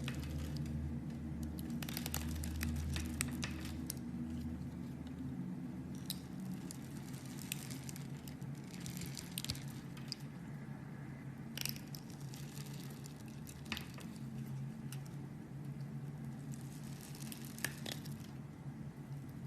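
Close-up squishing and crackling of a soft material being pressed and handled, with scattered sharp crunches and snaps.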